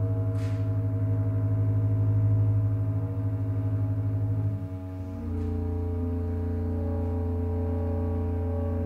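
Contemporary chamber ensemble of soprano, flute, clarinet and double bass holding a low, drone-like chord of steady sustained tones, which shifts to a new chord about five seconds in.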